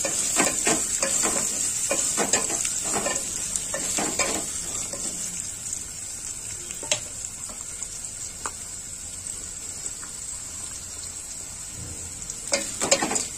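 Carrots, cashews and whole spices sizzling in hot ghee in a metal pot, with a steady hiss. A wooden spatula stirs and scrapes against the pot, busily in the first few seconds, then only now and then, and again in a quick flurry near the end.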